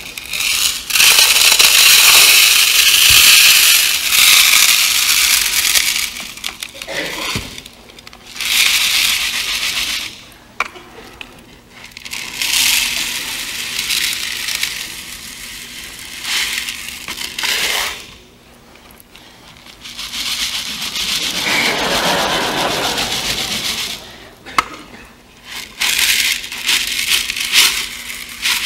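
Small green pebbles poured from a clear bowl into a clear plastic bucket, filling the gaps around the big rocks already inside. A hissing rattle of little stones comes in about six pours with short pauses between.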